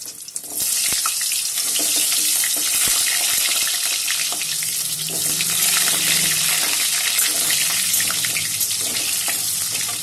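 Small new potatoes frying in hot oil in a kadai: a loud, steady sizzle sets in suddenly about half a second in as the potatoes go into the oil, with light scrapes and clicks of the spatula against the pan.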